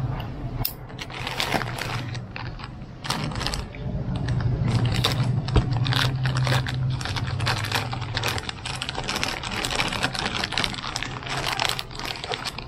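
Plastic courier mailer bag crinkling and tearing as it is cut and ripped open by hand: a fast, uneven run of crackles and rips, over a low steady hum.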